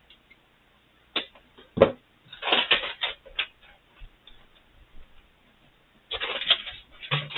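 Packaging being handled, rustling and crinkling in several short bursts, with a sharp crackle a little under two seconds in and the densest rustling in the middle and near the end.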